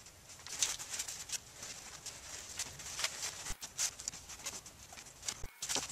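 Fiberglass cloth rustling and swishing as gloved hands lay small pieces of it onto a foam panel and smooth them flat, in irregular soft scrapes.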